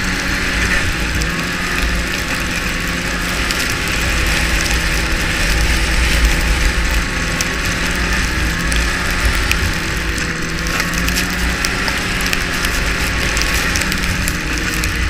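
Ski-Doo snowmobile running at a steady cruising speed, its engine note holding nearly constant.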